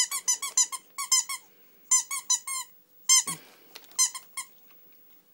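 Squeaky dog toy squeaked over and over as a dog bites down on it, in quick runs of five or six short, high squeaks that stop about four and a half seconds in. A brief rustle comes a little past halfway.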